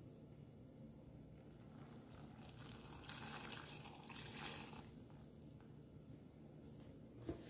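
Water poured from above into a saucepan of cut grapefruit pieces, the stream splashing for about two seconds a little before halfway through. A short knock near the end.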